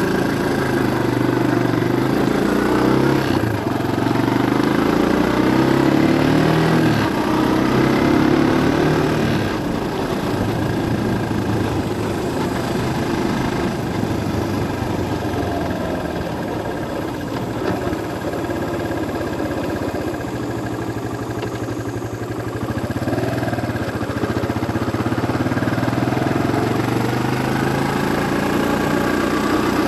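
Vehicle engine running on the move with steady road noise, its pitch rising and falling several times as speed changes.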